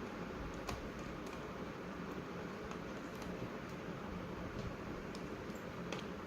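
Faint, scattered clicks and ticks of a Phillips screwdriver working the small bottom-case screws of a MacBook Pro, over a steady low room hiss.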